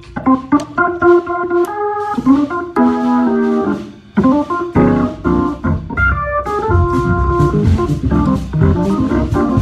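Hammond organ playing a quick run of chords that change every half second or so, with a brief break about four seconds in.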